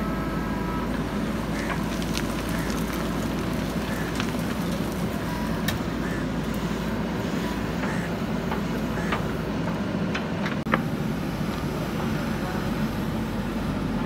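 JCB 3DX backhoe loader's diesel engine running steadily as the backhoe arm digs, with scattered sharp clanks and knocks from the bucket and arm linkage.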